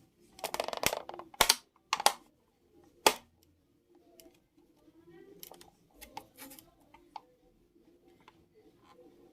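Small household objects being handled: a rustle, then a few sharp clicks and knocks, then fainter clicks and rustling.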